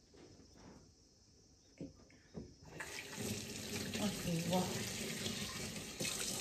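A couple of soft knocks, then about three seconds in a kitchen tap is turned on and water runs steadily into the sink.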